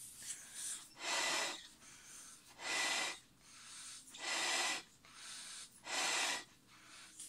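Mouth-inflating a large 36-inch latex balloon: four strong exhales blown into its neck, each a hissing rush of air about half a second long, spaced about a second and a half apart, with quieter inhales between.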